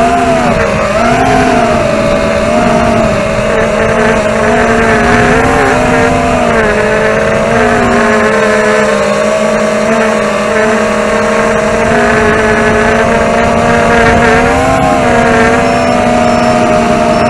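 DYS 2204 motors and Dalprop tri-blade propellers of a ZMR250 racing quadcopter whining in flight, the pitch wavering up and down as the throttle changes. Wind rumble on the onboard action camera's microphone sits underneath.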